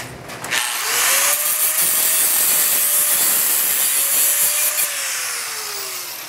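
Handheld angle grinder spinning up and cutting off the end of a fully threaded steel bolt clamped in a vise. The cut is loud and lasts about four seconds. Near the end the motor whine falls as the grinder coasts down.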